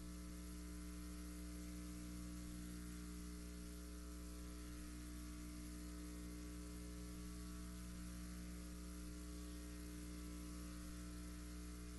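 Faint, steady electrical mains hum with a layer of hiss, several unchanging tones and nothing else.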